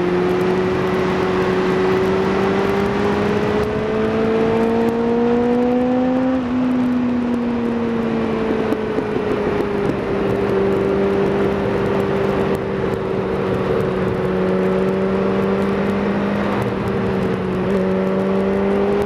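Kawasaki ZZR600's inline-four engine under way on the road, its pitch climbing slowly for about six seconds, then easing back as the throttle is rolled off and holding steady, rising again near the end. Wind rush runs underneath.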